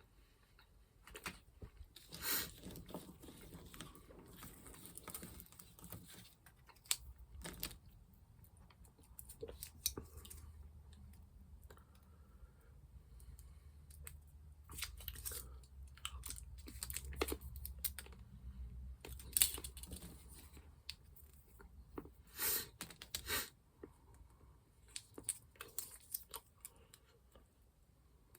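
Wrappers being torn and crinkled off chocolate coins and chocolate balls, and chocolate being chewed, as scattered sharp clicks, rustles and mouth sounds.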